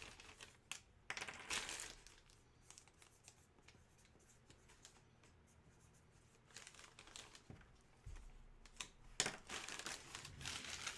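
Crinkling and rustling of packaging being handled, in spells over the first two seconds and again through the last few seconds, with a quieter stretch in between.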